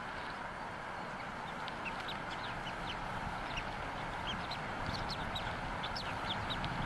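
Newly hatched bald eagle chick peeping: thin, high chirps about two a second, picking up from about two seconds in, over a steady background hiss.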